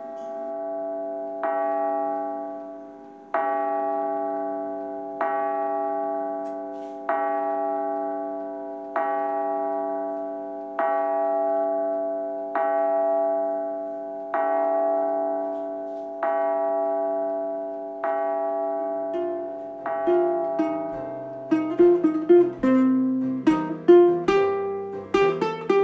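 Instrumental background music: slow chords struck about every two seconds, then, from about twenty seconds in, a quicker run of notes over a bass line.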